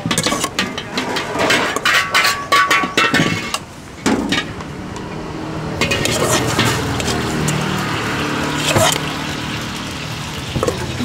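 Metal cooking utensils clattering and clinking against pans and plates in a street-stall kitchen for the first few seconds. After that comes a steadier background noise with a low drone.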